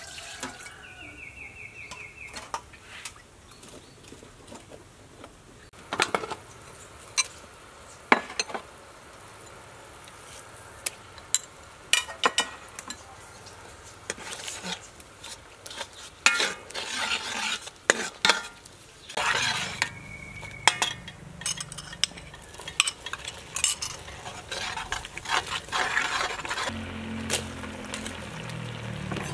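Metal ladle stirring in a metal cooking pot, knocking and scraping against its sides in irregular clinks, with food sizzling as aromatics fry in the pot.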